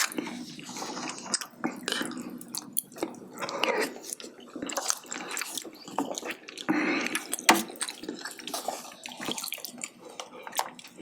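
Close-miked wet eating sounds: irregular chewing, smacking and sticky clicks of mouthfuls of saucy spicy braised chicken (jjimdak).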